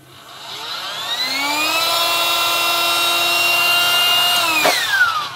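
A small handheld battery-powered device's electric motor spinning up with a rising whine, running steadily for a few seconds, then switched off with a click and winding down in a falling whine.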